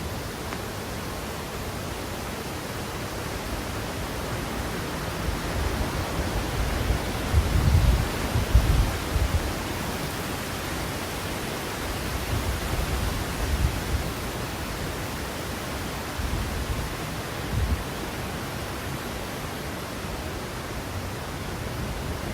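Steady rain falling, an even hiss throughout, with a few low thumps, the loudest about eight seconds in.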